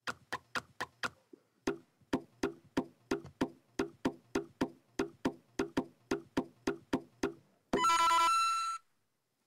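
LEGO Super Mario figure in the Cat Mario power-up suit playing its electronic wall-climbing sound effect: a fast, even series of short clicking taps, about three a second. Near the end it plays a ringing coin chime.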